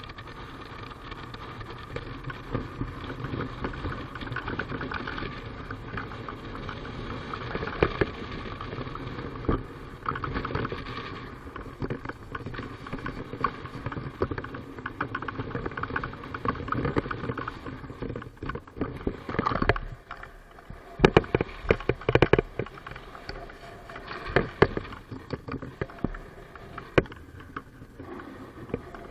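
An engine running steadily, with a run of scattered knocks and clatters over it in the last third.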